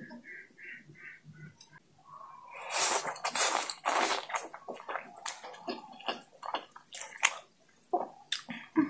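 Fork twirling oily noodles on the plate, then a loud wet slurp of noodles lasting about two seconds, followed by close-up wet chewing with many short squelches and clicks.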